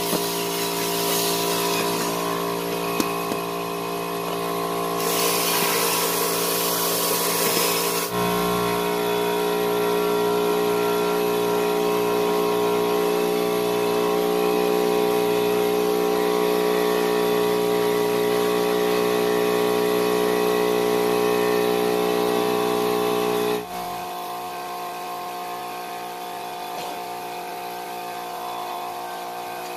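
Steady electric motor hum made of several fixed tones. A burst of hiss comes about 5 to 8 seconds in, and the hum drops in level and changes tone about 24 seconds in.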